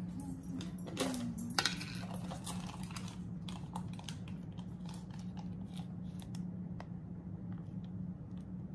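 Small irregular clicks and taps of food containers and a plastic dressing bottle being handled on a table, over a steady low hum. The two sharpest clicks come between one and two seconds in.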